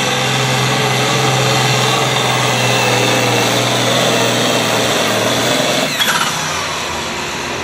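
Case IH pulling tractor's diesel engine running flat out under load, dragging the sled, a loud steady drone. About six seconds in the note drops off as the tractor comes to a stop at the end of its pull.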